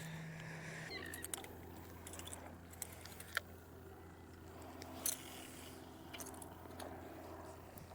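Faint scattered clicks and light rattling of fishing tackle being handled, over a low steady hum that starts about a second in.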